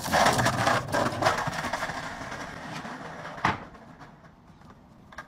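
Skateboard wheels rolling over paving slabs, loud at first and fading steadily, with one sharp clack about three and a half seconds in.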